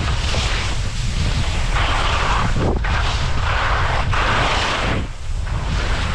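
Wind buffeting the microphone, with the hiss of skis scraping and sliding through soft spring snow that swells with each turn, about two seconds in and again around four seconds.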